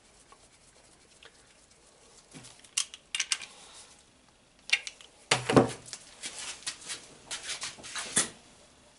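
Scattered clicks and knocks of hand tools and small metal parts handled on a workbench, starting a few seconds in, with one heavier knock about halfway through followed by a run of lighter taps.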